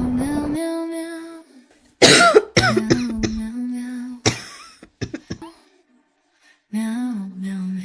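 A sick woman coughing, with two loud coughs about two seconds and four seconds in, among long held voice-like notes.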